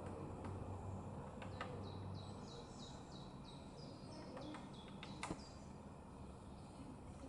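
Woodpecker pecking at oak bark: a handful of scattered single knocks rather than a drum roll, the loudest about five seconds in. A songbird sings a run of quick descending notes over the middle of it.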